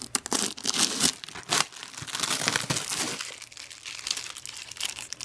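Clear plastic packing tape being peeled off a styrofoam shipping cooler and crumpled by hand: irregular crinkling and tearing, busiest in the first three seconds and sparser after.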